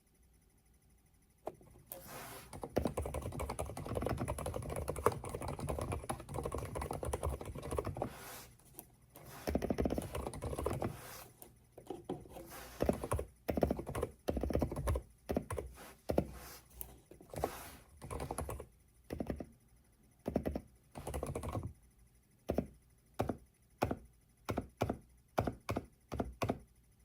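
Typing on a Funkeys NX108 low-noise mechanical keyboard. After about a second and a half of quiet, fast continuous keystrokes run for several seconds, then give way to shorter runs and separate key presses.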